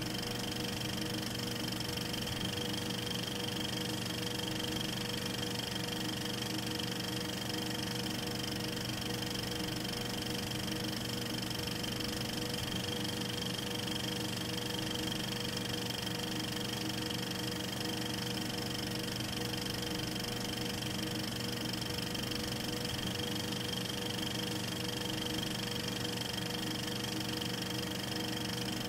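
8mm film projector running: a steady mechanical whir with a hum of several steady tones, unchanging throughout.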